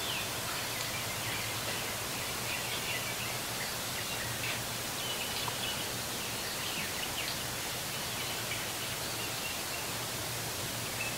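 Outdoor ambience: a steady background wash with a low, even hum under it and faint, scattered bird chirps.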